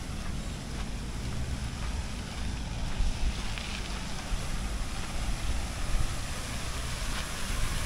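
Wind buffeting the microphone: a steady low rumble over a general outdoor street hiss.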